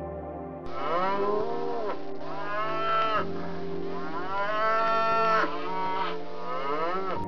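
Holstein-Friesian dairy cows mooing: four long moos one after another, each rising and then falling in pitch, the third the longest. Soft background music plays underneath.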